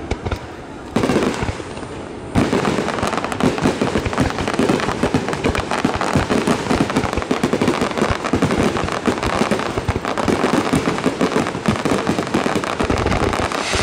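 Aerial firework shells bursting in a dense barrage, a rapid, unbroken run of bangs and crackles. The barrage is thinner for about the first two seconds, then fills in sharply.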